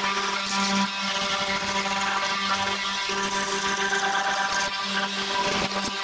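Small handheld cordless power tool's motor whirring steadily at a constant pitch.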